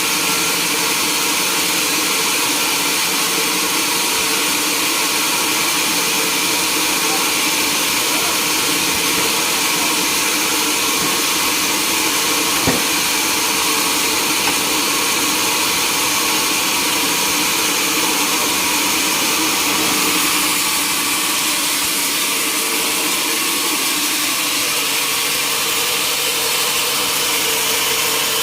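Sawmill machinery running steadily: a constant mechanical hum with a strong hiss, and a single sharp knock about twelve seconds in.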